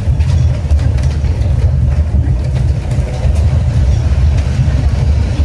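Steady low rumble of a Yurikamome rubber-tyred automated guideway train running at speed along its guideway, heard from inside the front of the cabin.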